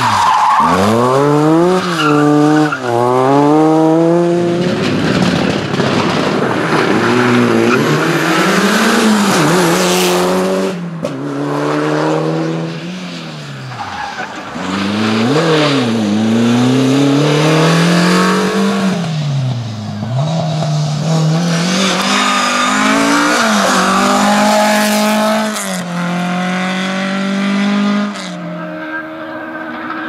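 Opel Astra and Opel Corsa rally cars driven hard past the camera one after another. Their engines rev up through the gears in repeated rising sweeps, each ended by a sharp drop at a shift or a lift off the throttle. Near the end an engine runs steadier and fainter from far off.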